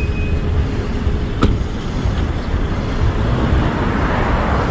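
Road traffic and vehicle noise with a strong, uneven low rumble, and a single sharp click about a second and a half in.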